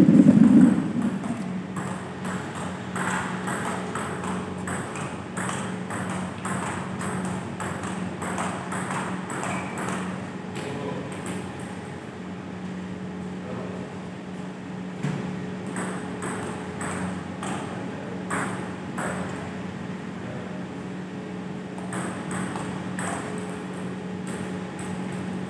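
Table tennis rallies: the ball clicking off the rackets and bouncing on the table, in runs of quick ticks with pauses between points. A loud bump comes at the very start, and a steady low hum runs underneath.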